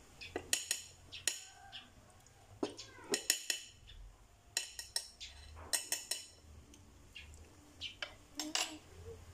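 Tableware clinking and tapping: a small spoon and a seasoning jar knocking against bowls and plates, in several quick clusters of sharp clicks.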